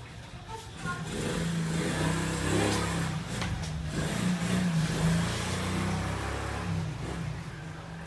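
A motor vehicle's engine passing by, growing louder from about a second in and fading out near the end, over the steady whoosh of a running ceiling fan.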